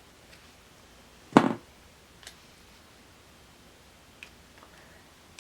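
Scissors snipping through a paper planner sticker, one sharp cut about a second and a half in, then a couple of faint clicks.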